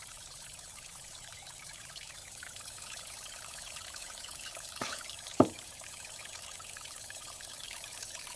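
Liquid trickling steadily as it is poured in a miniature cooking scene, with two light clicks about five seconds in.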